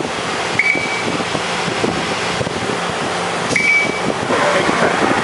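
Steady machinery noise of a working machine shop, with two short high beeps about three seconds apart.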